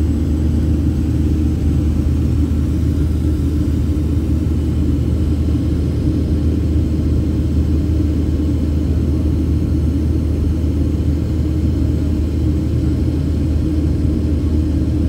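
Jet airliner cabin noise in the climb after takeoff: the wing-mounted turbofan engine and rushing air make a steady, loud, low rumble, heard inside the cabin.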